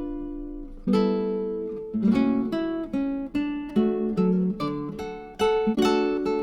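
Background music: acoustic guitar, plucked and strummed chords that ring and fade, struck about once or twice a second.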